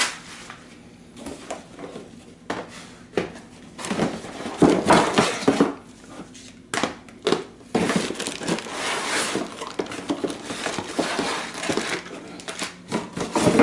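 Laptop packaging being handled: plastic wrap and bags crinkling and cardboard inserts rustling, with scattered knocks and clicks as parts are set down on a hard counter.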